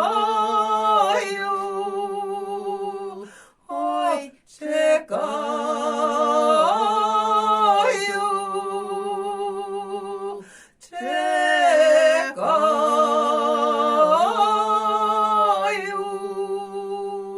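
Women singing a Ukrainian folk song unaccompanied, drawing out the closing phrases in long held notes with vibrato. There are three long phrases with two short notes between the first and second, and the singing breaks off at the end.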